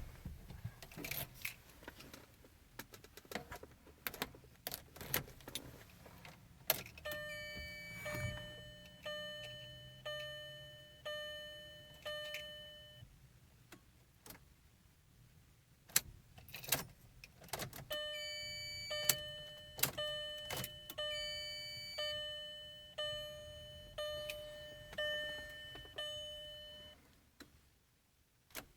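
Keys jangling and sharp clicks from a 2001 VW Jetta TDI's ignition as the key is tried, with no starter cranking and no engine running: a no-crank fault. Twice a dashboard warning chime repeats about once a second for several seconds, each tone fading out.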